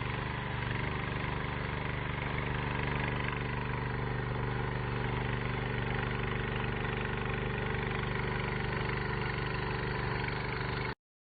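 Engine of a 7-horsepower WY-7000 walk-behind cultivator running steadily while working furrows, then cutting off abruptly near the end.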